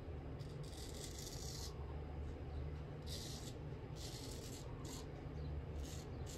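Straight razor scraping lather and stubble off a cheek in several short strokes, each a brief raspy hiss, the longest lasting about a second. A low steady hum runs underneath.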